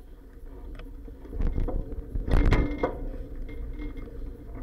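Clacks and bumps from a bicycle ride, picked up through an action camera's waterproof case mounted on the bike, over a low rolling rumble. A run of louder knocks comes about one and a half to three seconds in.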